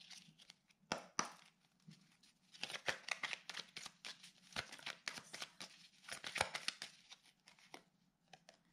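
Oracle cards being shuffled and handled by hand: runs of quick papery flicks and clicks, densest in the middle, with a few single snaps at the start.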